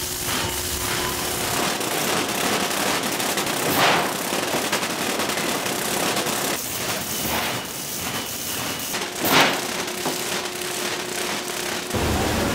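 Steel-sheet processing machinery running: a dense crackling rattle over faint steady hums, with two short louder bursts about four and nine seconds in.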